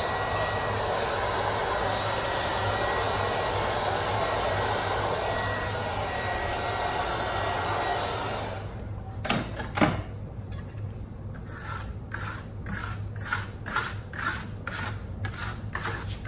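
A handheld hair dryer blowing steadily, switched off about halfway through. Then two knocks, followed by a run of short, rhythmic scraping strokes, about two a second: a hand tool scratching into the drying Venetian plaster.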